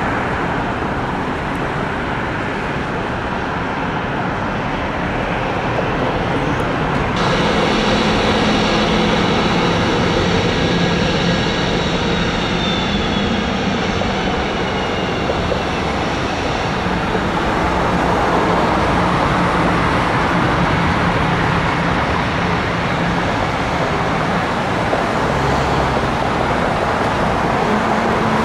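Jet engine noise from a Boeing 767-400ER climbing away after take-off. About seven seconds in it cuts to a Boeing 717-200's two rear-mounted Rolls-Royce BR715 turbofans running at taxi power, a steady jet rumble with a faint high whine that falls slightly in pitch.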